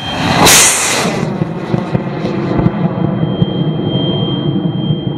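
High-power rocket on an L1365 motor lifting off from the pad. A sudden loud blast of ignition comes about half a second in, followed by a steady rush of motor exhaust for about four seconds.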